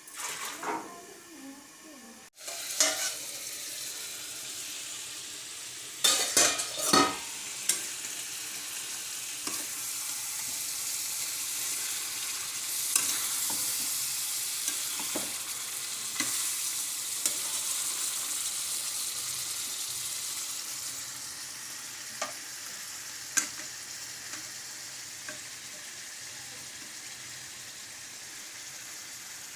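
Food frying and sizzling steadily in a pan, stirred with a spoon that scrapes and knocks against the pan, loudest in a cluster during the first several seconds, with a few single knocks later.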